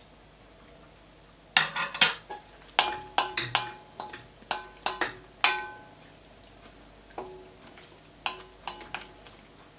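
A wooden spoon stirring stew in an enamelled pot, knocking against the pot's sides and rim. The knocks come as a quick run of sharp clacks with a short ringing tone, starting about a second and a half in and thinning out after about six seconds, with a few more near the end.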